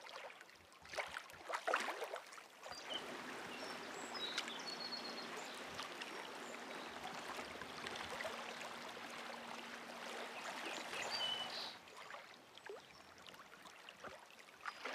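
Shallow river water rippling and lapping, an even wash of sound with a few short high chirps a few seconds in.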